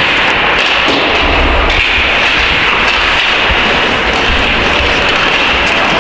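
Steady loud noise of an ice hockey game in a rink: a continuous scraping hiss with scattered clicks and a few dull thuds.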